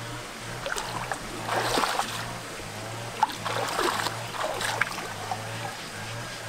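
Shallow stream water splashing and sloshing as bare feet step through it and hands reach into it, a few separate splashes over a low steady hum.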